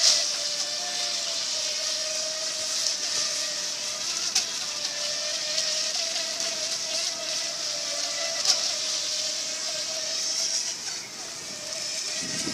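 Electric motors of upgraded FT009 RC racing speedboats running flat out across a pond, a steady high whine that wavers slightly in pitch, over a hiss.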